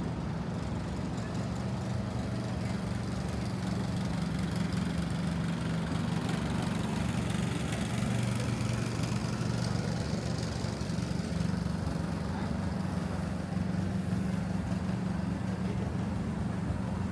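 A vehicle engine idling with a steady low hum, over general city street noise.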